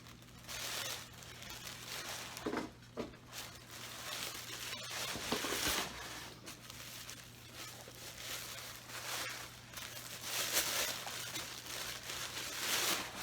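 Tissue paper crinkling and rustling as a wrapped mug is unwrapped by hand, in irregular bursts.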